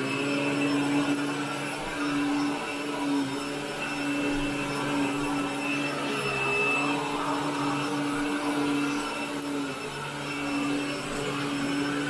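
Upright vacuum cleaner running steadily while being pushed over wall-to-wall carpet, pulling up dry soil: a constant motor hum over the rush of air.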